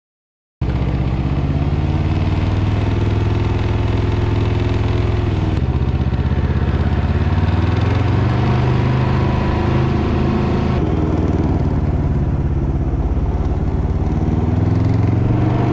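2021 Can-Am Ryker 600's Rotax twin-cylinder engine running, cutting in abruptly about half a second in, its revs rising and falling several times. The owner reports an engine knock in this engine.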